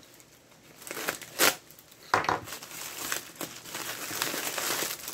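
Plastic courier mailer bag crinkling as it is handled and opened. A few sharp, louder rustles come between about one and two seconds in, then the crinkling is continuous.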